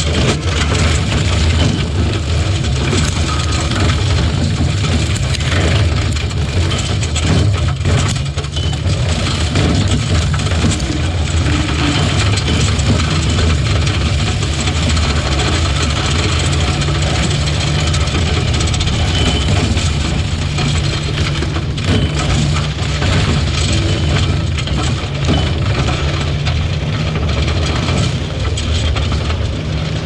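Engine running steadily at a constant pitch, with rough crackling noise over it.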